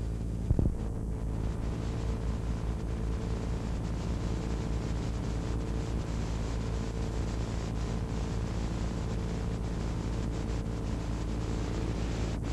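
Steady low electrical hum and hiss from blank videotape playback, with a brief low thump about half a second in.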